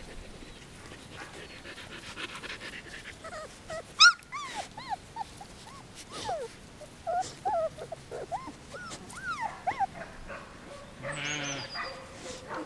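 Young Samoyed puppies whining and squeaking: many short, high, arching yelps, thickest from about four to ten seconds in, the loudest a sharp squeal about four seconds in. A brief rasping noise comes near the end.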